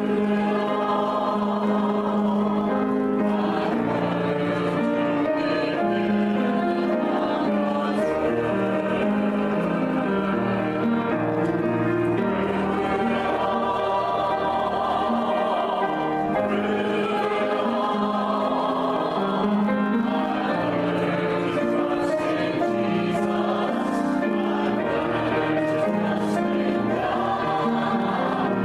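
Church choral music: a choir singing sustained chords at a steady level, with no clear words.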